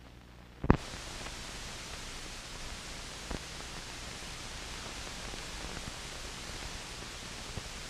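Steady hiss of an old 1940 film soundtrack, starting with a sharp click about a second in, with a fainter click a few seconds later.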